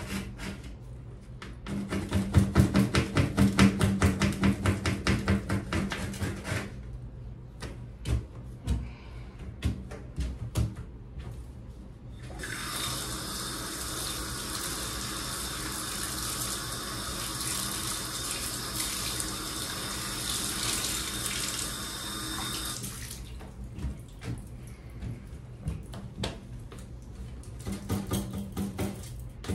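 A hand brush scrubbing rapidly at the enamel corner of a bathtub for the first six seconds, followed by a few scattered knocks. Then a tap runs steadily for about ten seconds and cuts off, and scrubbing starts again near the end.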